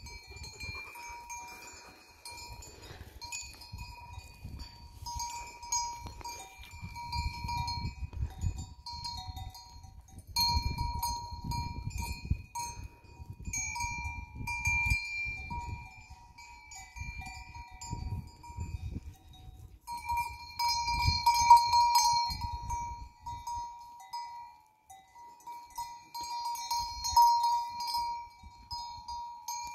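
Bells on a grazing goat herd ringing on and off, a steady clinking that swells and fades as the animals move, with irregular low rumbling underneath.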